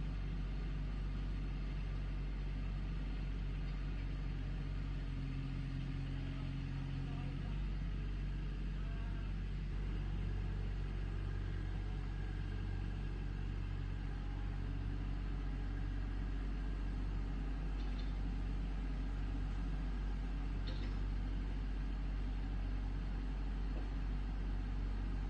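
Backhoe's diesel engine running steadily with a low drone, its note shifting about seven seconds in.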